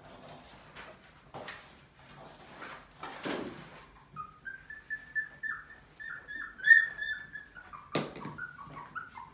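Puppy whimpering: a quick run of short, high squeaky whines starting about four seconds in, holding one pitch and then dropping lower near the end. A single knock sounds about eight seconds in.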